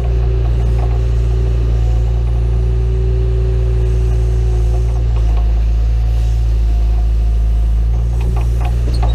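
John Deere 310E backhoe's diesel engine running steadily, with a steady higher tone over it for the first five seconds or so and a few short knocks near the end.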